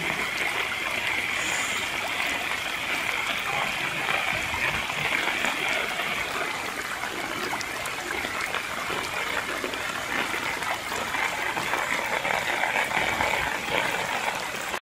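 Muddy floodwater of a river in spate rushing steadily, a continuous hissing flow of water that cuts off suddenly at the end.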